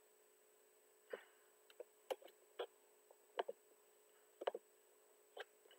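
Irregular clicks of a computer mouse and keyboard, about a dozen short sharp clicks, some in quick pairs, as text is selected and copied.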